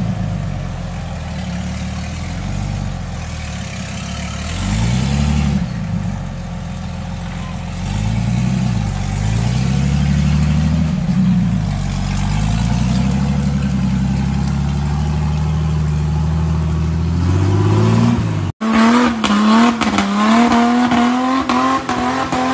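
Engine of an engine-swapped Suzuki Jimny off-roader revving up and down over and over as it crawls up a rocky, muddy trail. About 18 seconds in the sound cuts out for a moment, and then an engine is held at high revs, with many sharp clicks and knocks.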